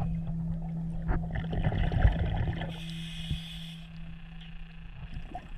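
Underwater recording of a scuba diver's bubbling and gurgling exhaust air, under a soft, held music drone that fades out.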